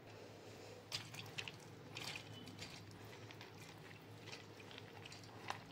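Soaked split moong dal being spooned into a steel grinder jar: faint wet pattering of the lentils with a few light clicks, the clearest about a second in, two seconds in and near the end.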